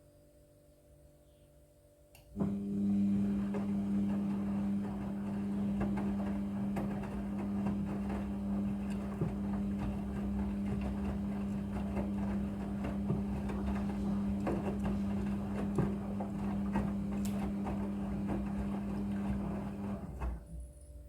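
A machine switches on a couple of seconds in and runs with a steady hum and some rattle, then switches off shortly before the end.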